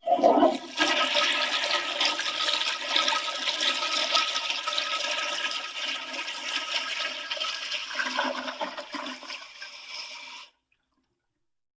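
Toilet flushing: a continuous rush of water that weakens over the last couple of seconds and cuts off suddenly about ten and a half seconds in.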